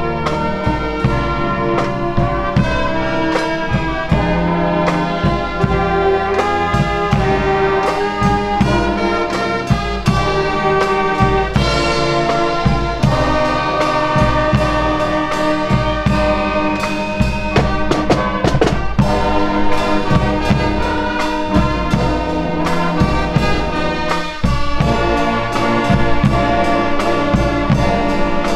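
Marching band playing a tune together: trumpets, trombones and other brass carrying the melody over steady snare and bass drum hits.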